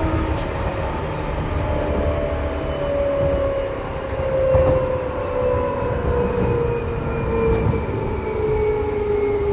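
Seibu 2000 series electric train heard from on board: its traction motor and gear whine falls slowly and steadily in pitch as the train slows, over the rumble of the wheels on the rails.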